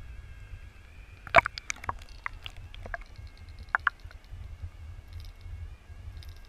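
Action camera in a waterproof housing dipped under a river's surface: a muffled low rumble, with a quick run of sharp clicks and knocks on the housing about a second and a half in and a few more near four seconds, over a faint steady whine.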